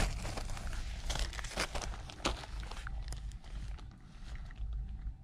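Plastic-wrapped toilet-paper packs crinkling and crackling as they are handled, a quick run of crackles in the first three seconds that then thins out, over low rumbling handling noise.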